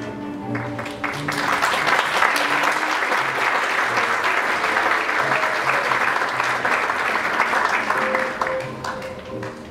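Theatre audience applauding, swelling about a second in and dying away near the end, over music playing underneath.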